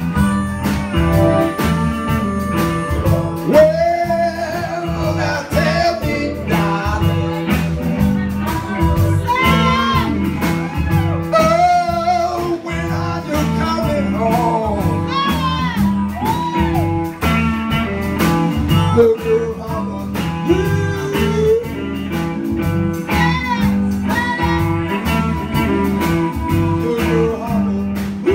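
Live electric blues band playing, with guitar and drums, and a lead line sliding and bending in pitch over a steady low pulse.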